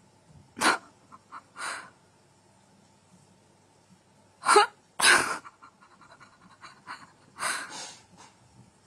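A cat hissing in warning: a string of short, sharp hisses, the loudest pair about halfway through, as it is pestered by an African grey parrot.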